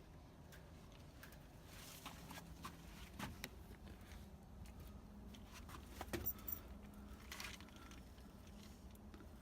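Faint, scattered clicks and short scrapes of a spline roller pressing the spline into a screen door frame's channel over metal screen mesh.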